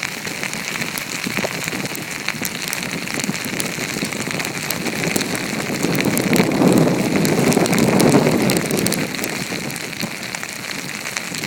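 Snowstorm wind with wind-driven snow grains ticking against the microphone. A gust builds about six seconds in and eases off a few seconds later.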